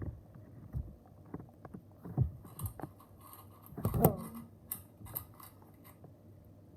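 Scattered light knocks and clicks at irregular intervals, as of small objects being handled, with the loudest knock about four seconds in.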